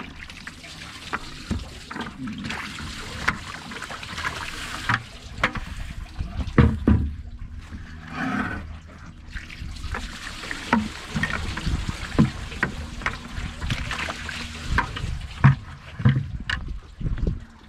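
Bluegills taken by hand from a bucket of water and set down on wooden dock boards: water splashing and dripping in the bucket, with many short wet slaps and knocks as the fish land on the deck.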